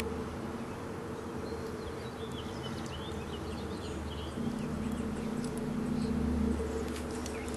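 A steady low buzzing hum holds throughout and grows louder for a couple of seconds past the middle, with faint short chirps now and then above it.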